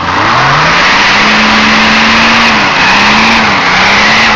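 Off-road 4x4's engine revving hard under load on a steep muddy climb, rising in pitch at the start, then held at high revs with a few brief dips as the throttle is worked.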